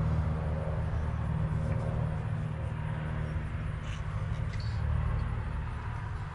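Steady low motor hum, with a few light clicks about four seconds in.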